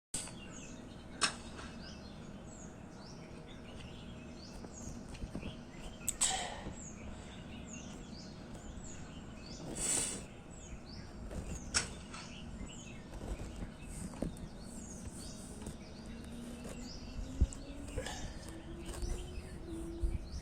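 Many birds chirping and singing over steady outdoor background noise, broken by a few short knocks and rustles. A faint low hum slowly rises in pitch near the end.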